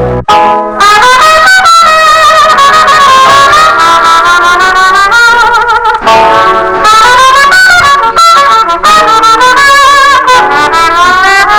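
Background music: a loud melodic lead line, sung or played with vibrato, over an accompaniment. It comes in just after a brief break at the start.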